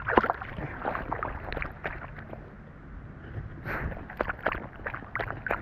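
A dog moving through snow and leaves, heard from an action camera on its collar: irregular crunching and scuffing steps and jostling over a steady low rumble.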